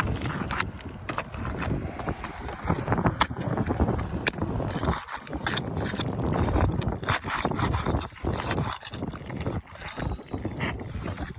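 Asphalt shingles being pried, scraped and torn loose on a roof, with a string of irregular knocks and clicks. The shingles are brittle and coming apart as they are worked.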